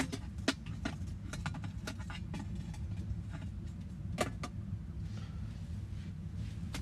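A steady low rumble with scattered light clicks and crackles, the sound of a wood stove burning in a canvas hot tent.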